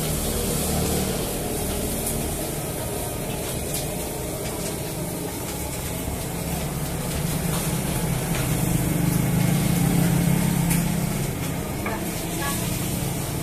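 Steady hissing background noise with a low hum underneath. The hum grows louder about eight seconds in and eases off again after about eleven seconds.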